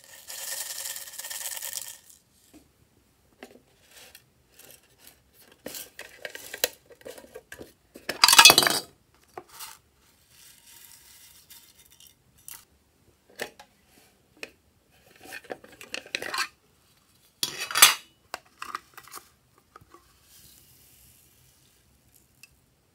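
Small slime add-ins being shaken from plastic packets into glass dishes: packets crinkling, and sequins and tiny beads pattering and clinking against the glass, with scattered light clicks. Two louder rustling bursts stand out, about a third of the way in and again about three quarters through.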